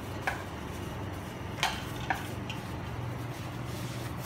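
A few light clicks and knocks from kitchen items being handled: three short sharp ones in the first half, over a steady low hum.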